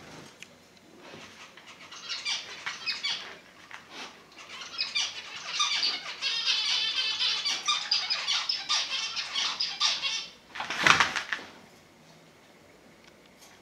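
Husky puppy whining in high-pitched, wavering squeals, begging for the rawhide bone held by the other puppy; near the end one louder, short cry.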